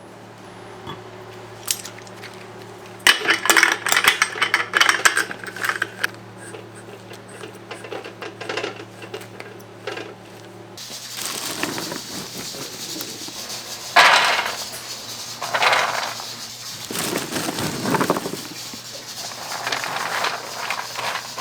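Metal clinks and clatter from cooking utensils on fish-shaped bread (bungeoppang) molds, coming in clusters, with several short hissing bursts in the second half.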